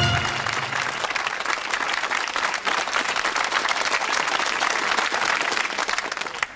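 Studio audience applauding, a dense steady patter of clapping that fades slightly. The final note of the theme music dies away about half a second in.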